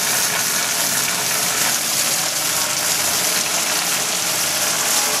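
Flood coolant system of a CNC mill running at full flow: three coolant nozzles spraying liquid onto the table and enclosure walls. It makes a steady rushing splash as the coolant drains back toward the tray.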